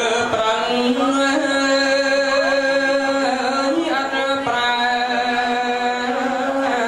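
A man singing smot, Khmer Buddhist chanted verse, solo into a microphone, in long drawn-out notes with slow wavering ornaments and small rises in pitch.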